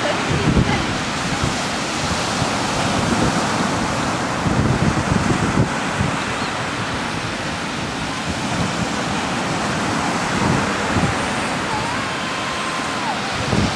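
Steady wash of surf from breaking ocean waves, with wind gusting on the microphone.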